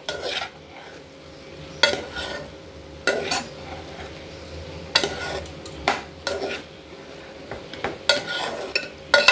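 A metal spoon stirring raw rice and chopped tomato in a pot: short scrapes and clinks against the pan, about one every second or so, irregularly spaced, as the rice is sautéed in oil.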